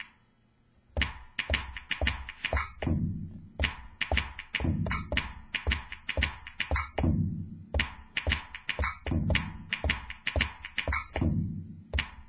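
Drum and percussion samples from a Maschine expansion kit, finger-drummed on the pads of a Native Instruments Maschine Studio. It starts about a second in: sharp knocks, clanks and chimes over a low thump about once a second.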